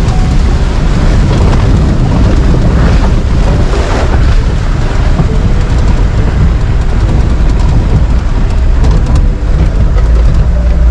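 Off-road safari vehicle fording a river: engine running under load, with water splashing and rushing around the wheels, and wind noise on the microphone.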